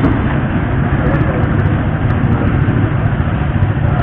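Steady low rumble of motor-vehicle noise, even in level throughout, with faint voices underneath.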